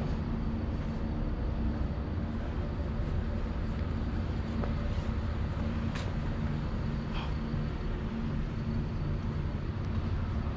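A vehicle running steadily: a low rumble with a constant hum, and a couple of faint ticks about six and seven seconds in.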